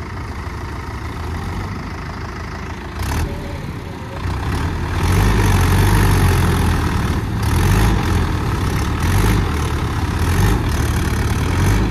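Mahindra tractor diesel engine running, getting louder and heavier about five seconds in as the tractors work to pull the 585DI out of the mud.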